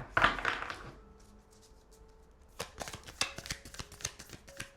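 A deck of tarot cards being handled and shuffled by hand. A brief swish of cards sliding comes at the start, then from about halfway a rapid run of card clicks and flicks.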